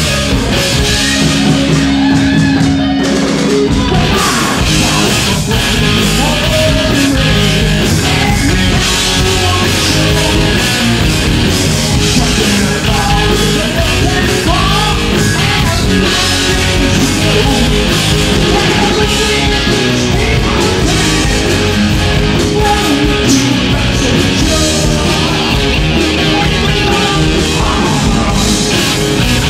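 Southern rock band playing live on stage: electric guitars, bass and drums, loud and steady throughout.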